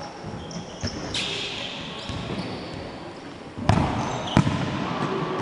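Indoor futsal game on a wooden court: sneakers squeak in short high chirps, and the ball is struck with sharp thuds, about a second in and twice near the end, the last two the loudest. Players' voices call out briefly.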